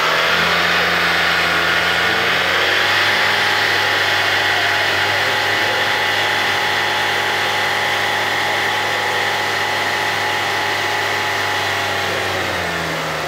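Car engine running at raised revs: its pitch eases down a little over the first couple of seconds, holds steady, then drops as the revs fall near the end.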